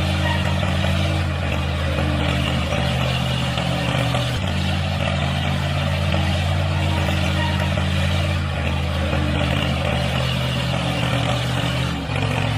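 An engine running steadily at an even speed, a low unbroken drone that dips briefly near the end.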